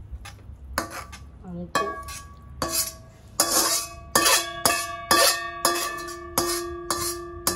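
Stainless-steel honeycomb wok being knocked and scraped while food is tipped out of it onto a plate. There are about a dozen sharp knocks, roughly two a second, and after each one the pan rings on at the same few pitches.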